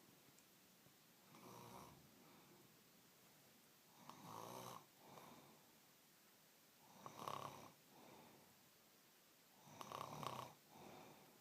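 Quiet snoring in a slow, even rhythm: four snores about three seconds apart, the later ones each trailed by a softer breath.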